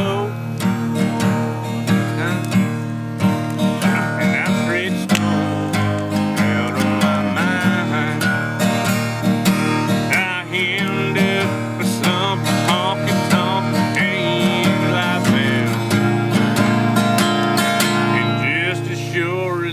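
Country-style music with strummed acoustic guitar keeping a steady rhythm, and higher melodic lines wavering over it.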